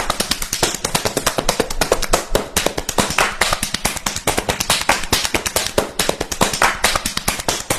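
A fast, unbroken run of sharp taps or clicks, many a second, at an even loudness.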